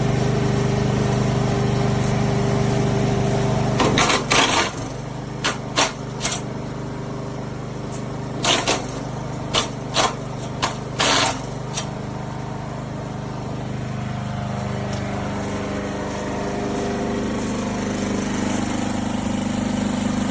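The SuperHandy wood chipper's 7 HP gas engine running steadily, then a string of about ten sharp cracks from about 4 to 11 seconds in as branches are fed in and chipped. The engine note sags under the load and climbs back up near the end.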